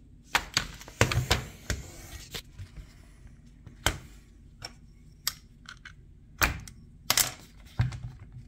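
Irregular clicks and knocks of an AR-15 rifle being handled and set down on a metal workbench, with a few sharper knocks about a second in and again near the end.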